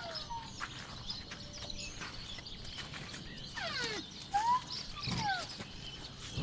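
Outdoor animal sounds: several short whistled calls that slide up and down in pitch, near the start and again about four to five seconds in, with one longer falling squeal just before four seconds.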